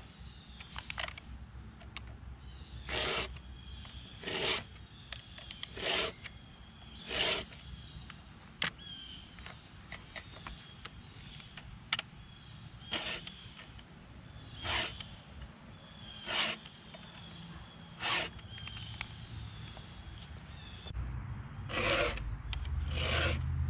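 Stihl 2-in-1 file guide (round file with a flat raker file alongside) rasping across the cutters of a chainsaw chain, one push stroke about every one and a half seconds, in runs of about four with a pause between teeth. Insects chirr steadily in the background.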